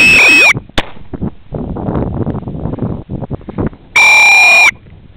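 Two loud blasts on a gundog whistle: one already sounding at the start and stopping about half a second in, the other about four seconds in, each a steady shrill note that drops in pitch as it cuts off. Low rustling noise between the blasts.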